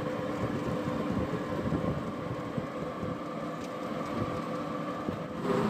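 A motor vehicle running along a road, heard from inside its open-sided passenger cabin: a steady mix of engine hum, road rumble and wind noise.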